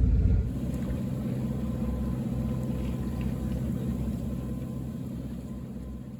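Sailing yacht's inboard engine running steadily under way, a low rhythmic drone that slowly fades toward the end.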